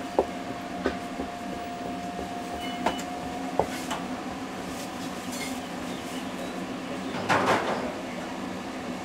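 A cleaver chopping down through youtiao dough onto a floured wooden board gives a few sharp knocks in the first four seconds over a steady hum. A brief louder scuffing noise comes about seven seconds in.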